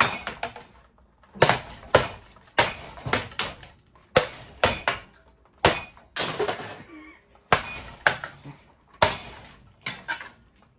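A cheap Hero ceiling fan being smashed: a run of sharp cracking and crashing blows, roughly one every half second to second and a half, each with a short ring.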